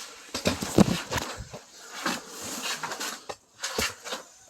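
Irregular rustling and knocking, with many sharp clicks, from handling a pop-up hub-style ice fishing shelter's fabric and poles.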